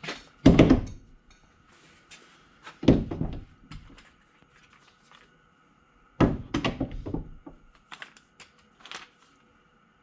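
Clamps being hung on a wooden wall rack, clunking against it: a heavy knock about half a second in, another around three seconds, a rattling run of knocks around six to seven seconds, then a few lighter taps.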